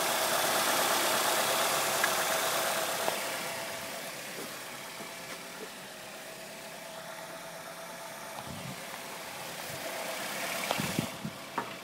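A 2006 Nissan X-Trail's 2.5-litre four-cylinder engine idling steadily, heard from the open engine bay. It is louder for the first few seconds and fainter after about four seconds, with a few light knocks near the end.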